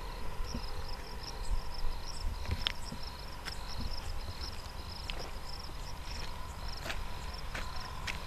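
Field insects chirping: short, high chirps repeating at an even pace, about one and a half a second, over a low rumble, with a few light clicks scattered through.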